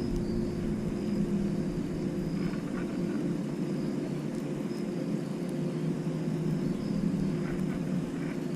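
An engine running steadily, a low hum holding one pitch throughout.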